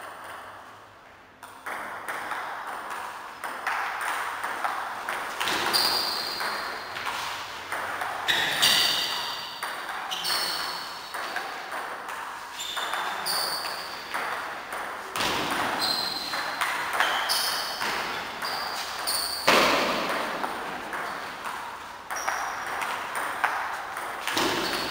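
Table tennis ball being hit back and forth with paddles and bouncing on the table in a long rally, a steady run of sharp clicks with a light ping, starting after a quiet moment about a second and a half in.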